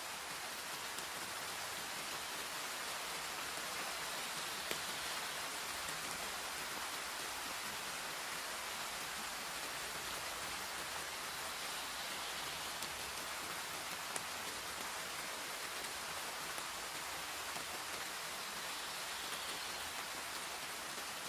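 Steady rain falling, a constant even hiss of drops with an occasional single louder drop tick.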